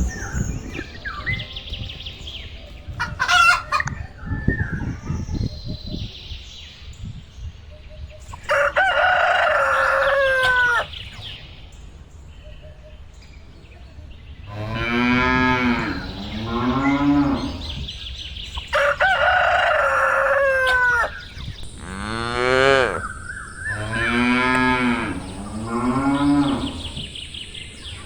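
Farm animal calls: cattle mooing several times, mixed with chicken and rooster calls. The same call repeats about ten seconds apart, like a looped sound effect.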